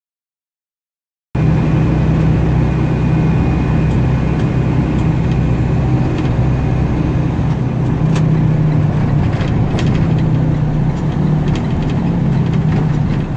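Engine and road noise of a vehicle driving at a steady speed, heard from inside the cab: a steady low hum with a few faint clicks. It cuts in after about a second of complete silence.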